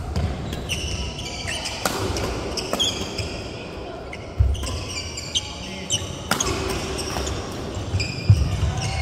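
Badminton doubles rally: several sharp racket strikes on the shuttlecock, with sneakers squeaking and thudding on the wooden court floor between shots.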